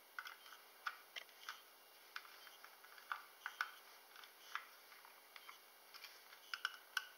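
Faint, irregular small clicks of a small screwdriver turning the screws in the base of an aluminium FLIRC Raspberry Pi case, the tip clicking against the metal, about a dozen times.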